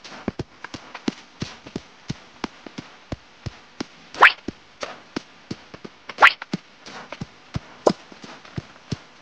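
Playful edited-in sound-effect track: light, even clicks at about three a second, with two quick rising whistle-like swoops about four and six seconds in.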